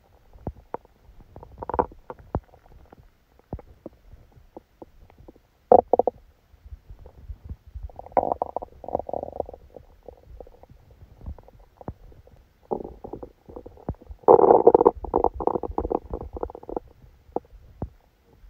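A person's stomach rumbling and gurgling during a stomachache after a large meal: scattered short pops and gurgles, a longer gurgle about eight seconds in, and the loudest, longest churning gurgle from about fourteen to seventeen seconds in.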